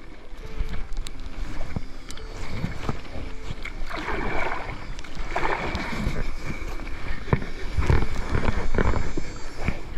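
Paddle strokes from an inflatable packraft: water splashing and sloshing around the blades and hull, with several sharp knocks of the paddle. The strongest splashes come about four seconds in, about five and a half seconds in, and loudest about eight to nine seconds in.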